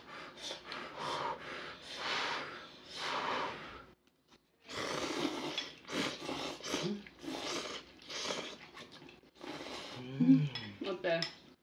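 People slurping kimchi-stew broth and glass noodles: a series of short slurps with a brief pause about four seconds in.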